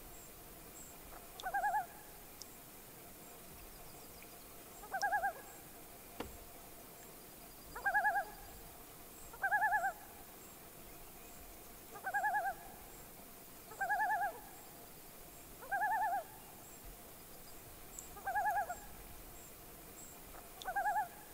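An animal call repeated nine times: short trilled notes of about half a second each, a few seconds apart.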